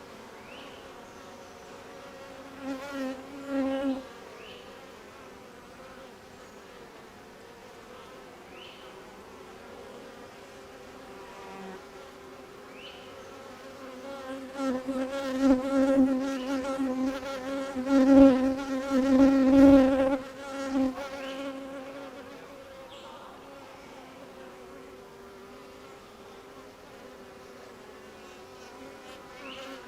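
Honeybees buzzing, a steady hum that swells loud as bees fly close past, briefly about three seconds in and for several seconds around the middle.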